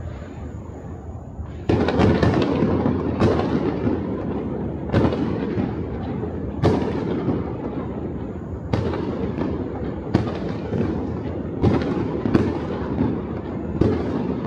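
Fireworks going off across a city, many at once: a quieter start, then from about two seconds in a steady mass of crackle and rumble with a dozen or so sharper bangs standing out.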